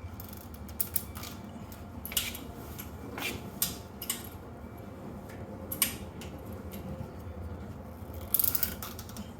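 Mac Tools MT770A wrap-around exhaust pipe cutter being swung back and forth around an exhaust pipe and tightened down, cutting into the pipe: irregular metallic clicks and scrapes, with a quick cluster near the end.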